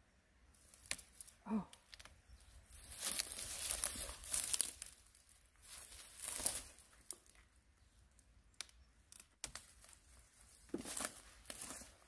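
Fresh Korean angelica-tree (dureup) shoots being torn off the tops of their stems by gloved hands, with rustling of the dry stalks: several short tearing, crinkling bursts with pauses between.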